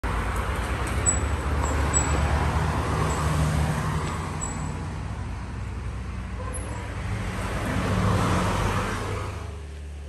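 Road traffic passing close by: a steady engine rumble with tyre noise that swells twice, about three seconds in and again about eight seconds in, then fades near the end.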